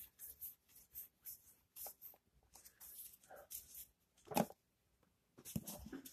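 Baseball trading cards sliding and flicking against one another as they are sorted by hand, a string of faint short rustles, with a louder knock about four seconds in and a few more near the end.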